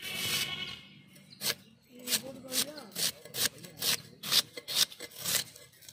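Red onions being peeled and cut against an arivalmanai, an iron floor-mounted cutting blade: a longer rasping sound at the start, then a run of short crisp cuts, roughly two a second.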